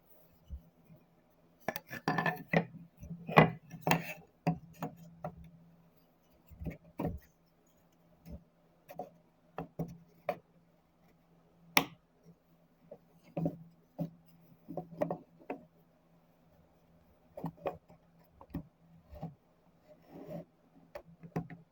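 Irregular clicks, knocks and rubs of wooden puzzle-box parts with dovetail joints being handled and fitted together, with a few sharper clicks, over a steady low hum.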